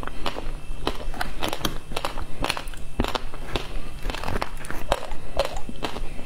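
Close-miked crunching as frozen passion fruit ice with its seeds is chewed, mixed with a metal spoon scraping and chipping the frozen pulp in the tray. Irregular sharp crunches and clicks, several a second.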